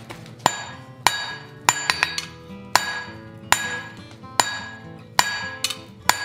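Hand hammer striking a red-hot steel bar on an anvil, about nine blows spaced a little under a second apart, each with a bright metallic ring that dies away. This is the working end of a fireplace poker being drawn down to a dull square point.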